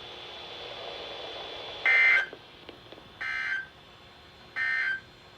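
Emergency Alert System end-of-message signal: three short bursts of SAME data tones about 1.3 s apart, the first the loudest, marking the end of a severe thunderstorm warning broadcast. A faint steady hiss runs beneath them.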